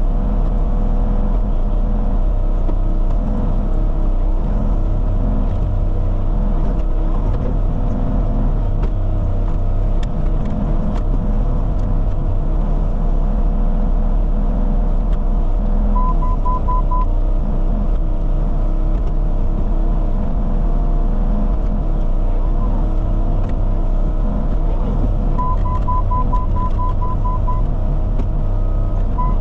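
Bobcat E35 mini excavator's diesel engine running steadily under work. Twice in the second half, a short run of rapid high-pitched beeps comes in.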